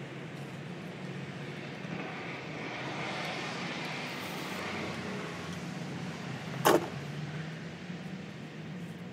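A vehicle going past, its noise swelling and fading over a few seconds above a steady low hum. A single sharp click about two-thirds of the way through is the loudest sound.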